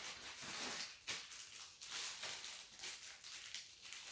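Rustling and handling of packaging as the box contents are taken out, in irregular scratchy swells.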